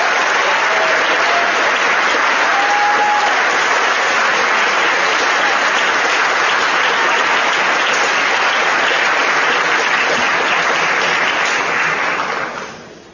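An audience in a hall applauding, a steady dense clapping that dies away about a second before the end.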